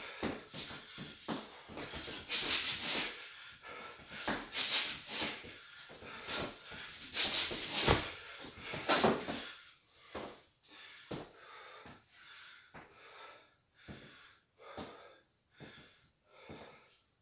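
A man's sharp, hissing exhalations with each punch while shadowboxing hooks. After about ten seconds they give way to quieter, regular panting, roughly one breath every second, as he recovers.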